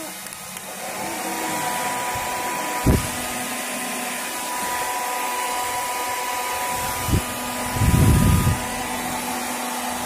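Hand-held hair dryers running steadily on their highest setting, a Panasonic EH-ND18A and a Philips HP8126 blowing side by side for an airflow comparison: a steady rush of air with a whine on top. A few brief thumps break in, and a louder low rush comes about eight seconds in.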